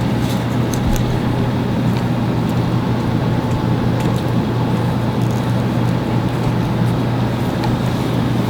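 A steady low hum with a rushing noise over it, from some running machine or engine, with a few faint clicks of small pieces being handled.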